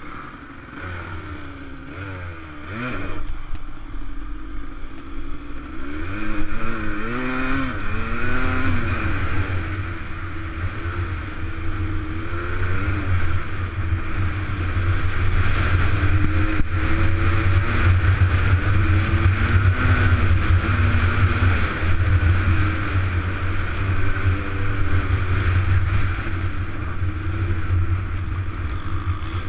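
Dirt bike engine pulling away from slow, its pitch sweeping up several times as the rider accelerates and shifts up. It then runs hard at a steady pace along a gravel trail, with rushing wind and noise from the trail over the top.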